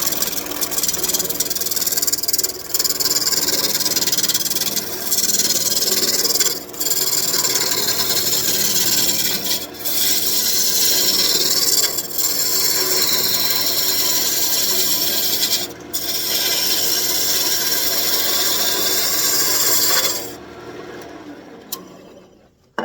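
Lathe gouge cutting a spinning birch branch, a loud steady hiss of wood and bark being shaved off, broken by about five brief gaps where the tool lifts off. The cutting stops about 20 seconds in, leaving a lower noise that fades out near the end.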